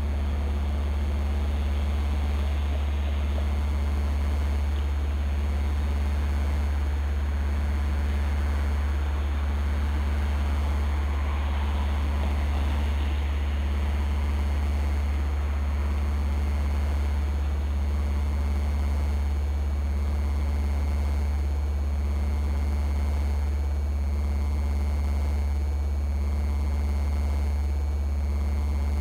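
A steady, deep low drone with a faint hiss above it, unchanging throughout, with a slight swell in the hiss about eleven seconds in.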